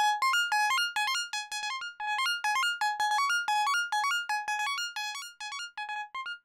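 DIY Dwarf Star modular synthesizer playing a fast, bouncing melody of short plucked notes, about four a second. The notes grow quieter and duller near the end.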